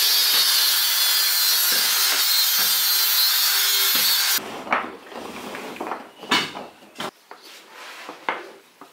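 Electric drill running an abrasive wheel against small pine pieces, a loud steady grinding hiss that stops abruptly a little over four seconds in. After that come a few light knocks and clicks of wooden pieces handled on the bench.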